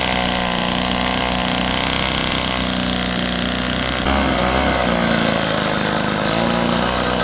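Small two-stroke grass-cutter (brush-cutter) engine mounted on a foam model plane, running steadily with the plane standing on the ground; its note changes about four seconds in.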